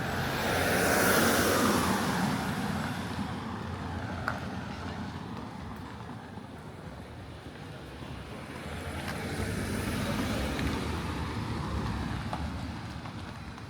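A car passing close by, loudest a second or two in, its sound sweeping down in pitch as it goes. A second vehicle swells and fades around ten seconds in.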